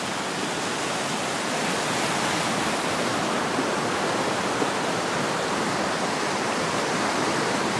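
Swollen river rushing in turbulent whitewater, a steady roar of water that grows a little louder over the first couple of seconds.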